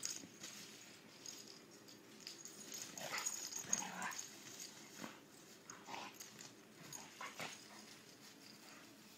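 Two dogs playing, making a few faint short vocal sounds, the loudest a little after three seconds in, with smaller ones every second or so after.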